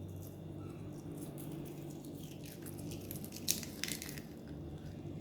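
Utensil working through a soft, oily salted egg mixture in a bowl: faint squishing with a few light clicks, the sharpest about three and a half seconds in, over a steady low room hum.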